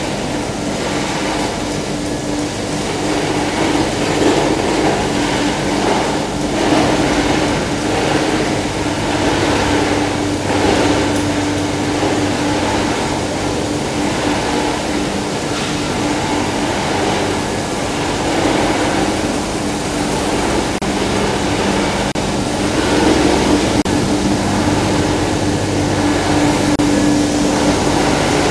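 Machinery of a plastic woven-bag recycling line running steadily: a constant mechanical din with a steady hum through it.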